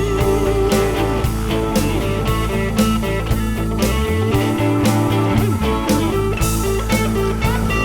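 Background music: a rock track with electric guitar and a steady beat.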